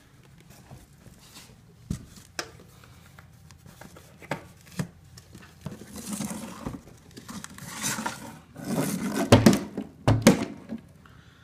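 Handling noises: a few sharp clicks, then bursts of rustling and scraping that grow louder and are loudest a little past nine and around ten seconds in.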